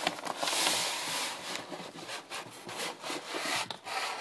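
Packaging being handled and rummaged through: a stretch of rubbing, rustling hiss early on, then a series of short rustles and light clicks.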